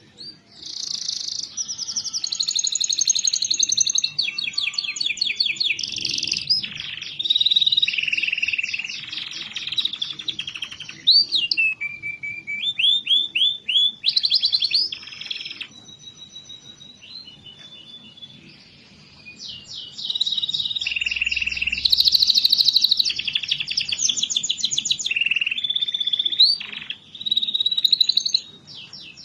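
Domestic canary singing a long, loud song of fast trills and rolling phrases, easing off for a few seconds midway before resuming; a full, busy 'gacor' song of the kind played as a lure to set reluctant canaries singing.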